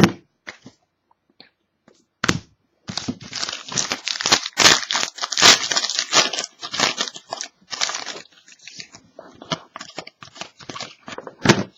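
A trading card pack wrapper being torn open and crinkled. There are a few sharp rips at first, then several seconds of dense, irregular crinkling, and a last sharp crackle near the end.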